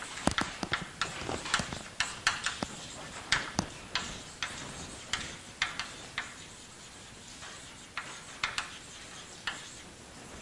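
Chalk writing on a blackboard: an irregular run of sharp taps and short scrapes as letters are written, thick at first and thinning out in the second half.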